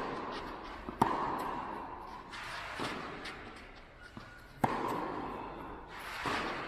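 Tennis ball struck by rackets in a rally, four sharp hits less than two seconds apart, the first and third the loudest, each ringing on in a long echo of a large hall.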